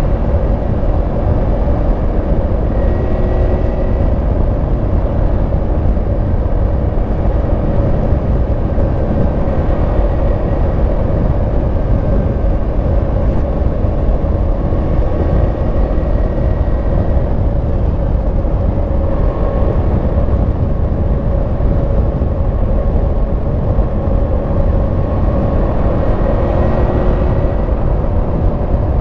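2022 Yamaha MT-10 SP's crossplane inline-four engine running at a steady cruise through its stock exhaust, with heavy low wind rumble on the microphone.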